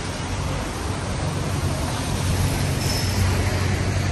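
City road traffic on a wet street: a steady low engine drone that swells a little toward the end, over an even hiss of tyres and street noise.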